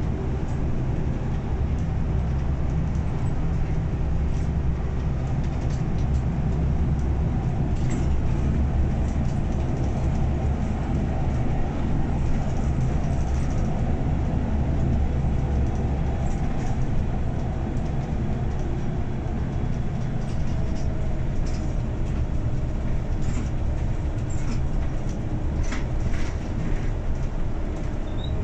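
Cabin sound of a Scania N94UB Omnicity bus on the move: its diesel engine runs with a steady low drone under road noise, with occasional light clicks and rattles from the body and fittings. The engine note drops a little about halfway through.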